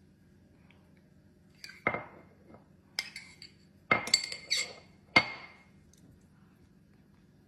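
A fork or spoon clinking and scraping against a plate as a serving of taro in coconut cream is scooped up, about six sharp ringing clinks between about two and five and a half seconds in.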